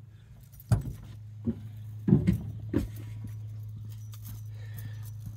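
A handful of knocks and metal rattles from cable hardware and tools being handled in the first three seconds, over a steady low hum.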